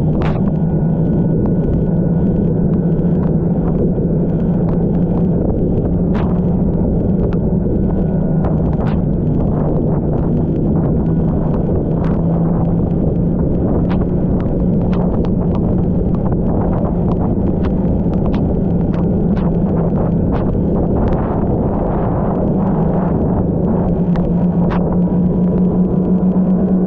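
Snowmobile engine running at a steady cruising speed, heard from a camera mounted on the sled, with scattered sharp clicks and knocks.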